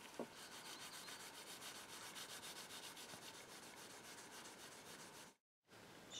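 Faint, quick, even rubbing strokes of a paper towel over a cast iron strike plate, wiping fresh black paint off its raised pattern. The rubbing stops abruptly about five seconds in.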